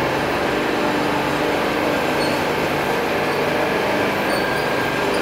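Briquette-making factory machinery running steadily: a constant mechanical noise with several steady low hums.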